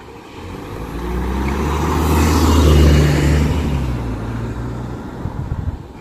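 A road vehicle passes close by: its engine and tyre noise swell over about two seconds, peak near the middle, then fade away.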